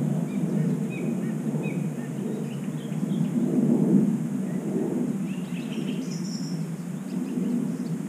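An uneven low rumble, like wind buffeting the microphone, runs throughout and is the loudest sound. Over it, small birds chirp faintly now and then, with a brighter cluster of high chirps about six seconds in.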